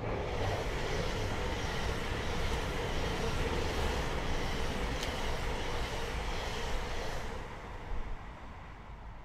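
Steady rushing rumble of a passing vehicle, easing off near the end.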